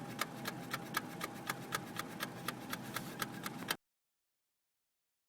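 Rapid, even ticking, about four ticks a second, over a faint steady tone; it cuts off abruptly a little before four seconds in, leaving dead silence.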